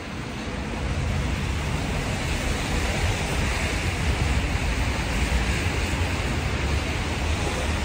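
Wind buffeting the phone's microphone: a steady rumbling hiss that gets louder about a second in and then holds level.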